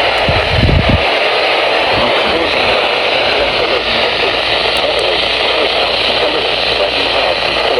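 Weather radio putting out loud, steady static hiss on a weak or lost signal. A brief low rumble comes about half a second in.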